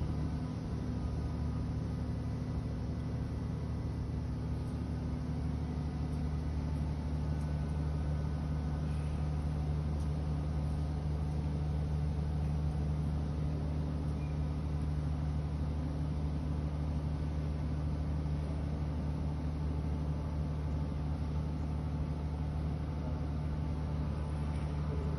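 Steady low hum and rumble of a tissue toilet paper and kitchen towel converting line running, holding an even pitch and level throughout.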